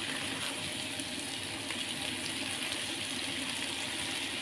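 Water spinach sizzling as it stir-fries in a hot pan with its spice paste: a steady, even hiss, wet-sounding from the water the freshly washed greens give off.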